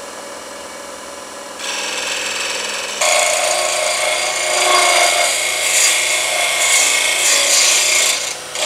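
Wood lathe running with a steady hum. About a second and a half in, a turning chisel starts to touch the spinning wooden blank. From about three seconds in it cuts steadily into the wood with a loud scraping noise, with a brief break just before the end.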